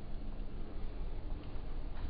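Steady low rumble with a faint even hum: the background machinery noise of a bulk carrier's bridge while the ship is underway.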